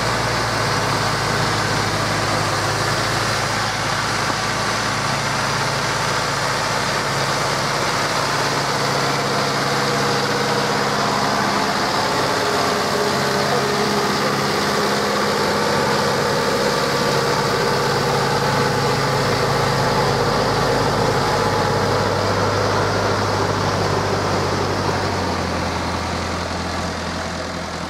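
Zetor Proxima 85 Power tractor's four-cylinder diesel engine running steadily as the tractor drives past towing a trailer, its pitch shifting up and down in steps. The sound fades out near the end.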